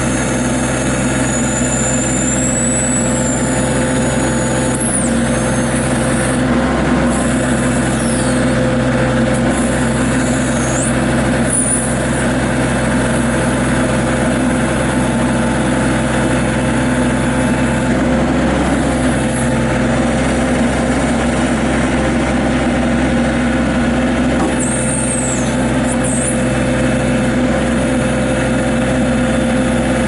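Kubota L3430 compact tractor's diesel engine running steadily while the backhoe's hydraulics swing and raise the boom. A few short, faint high-pitched squeaks come and go.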